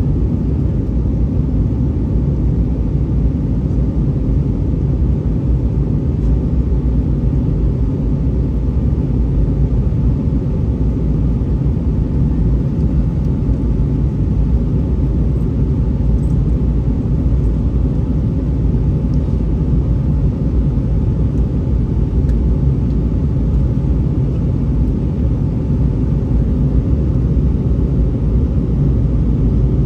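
Steady cabin noise inside an Airbus A319-131 airliner: an even, low rumble from its engines and the air around the fuselage, with no change in power.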